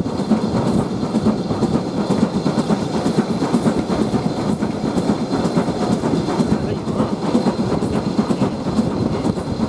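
Steam-hauled train on the move behind a BR Standard Class 4 2-6-4T tank locomotive: a steady, loud rumble and clatter of wheels on the rails, heard from an open carriage window close behind the engine.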